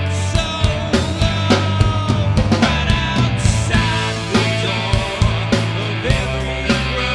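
Rock music: a band with drum kit, bass and guitar playing a steady driving beat, with drum hits about twice a second.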